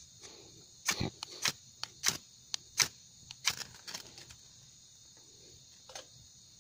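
Insects chirring steadily, with a string of about ten sharp knocks and clicks between one and four seconds in and one more near the end.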